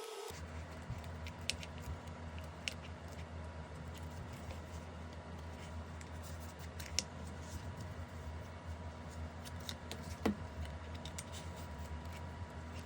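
A steady low hum, with a few scattered light clicks and taps from small objects being handled. About ten seconds in comes the loudest sound, a short squeak that falls in pitch.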